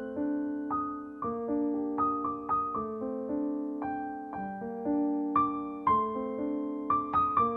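Background piano music: single notes and chords struck one after another, each fading away.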